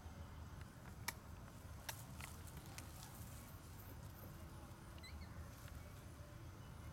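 Faint outdoor background with a steady low rumble, a few sharp clicks and crackles in the first two and a half seconds, and a brief faint high chirp about five seconds in.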